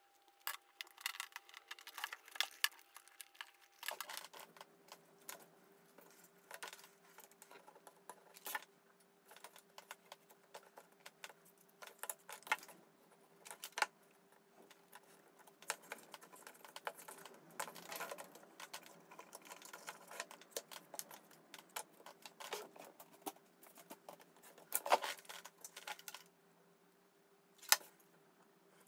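Scissors snipping grey cardboard, then a craft knife cutting it and hands handling the small pieces. The sound is a run of irregular light clicks, snips and scrapes, with a few sharper ones standing out.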